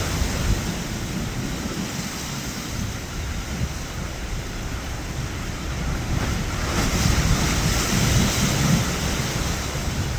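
Wind buffeting the microphone over the wash of surf, swelling louder about seven seconds in.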